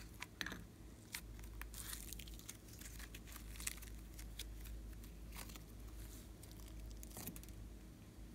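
Soft purple slime being pressed and stretched by hand, giving an irregular run of small sticky crackles and pops as it pulls apart.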